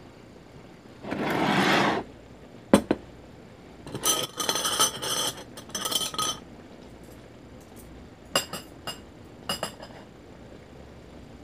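Spoon and chopsticks clinking and scraping against a bowl in several short runs, with single sharp clinks between. A louder rustle lasting about a second comes about a second in.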